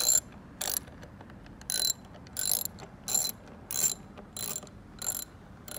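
Ratchet wrench clicking in short bursts, about one and a half a second, as the trim's mounting bolts are tightened down.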